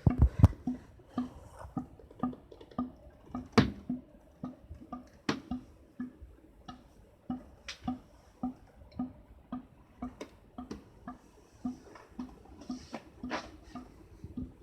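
Air conditioner's abnormal noise: a hollow dripping, plopping sound that seems to echo inside its pipe, a regular drip about twice a second with sharper clicks here and there.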